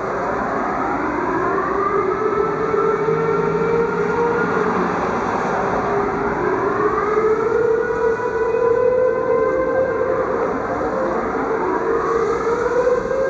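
Dutch civil defence air raid sirens sounding their noon monthly test. Several sirens wail at once, giving a strong steady tone that slowly rises, overlaid with many criss-crossing pitch glides.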